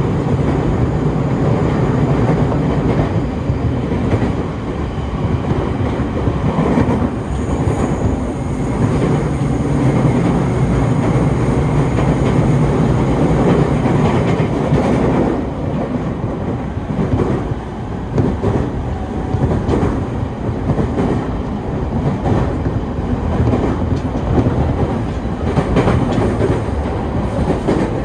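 Commuter electric train running between stations, heard from inside the car: a steady rumble of wheels on rail, with rail-joint clickety-clack that grows more distinct about halfway through.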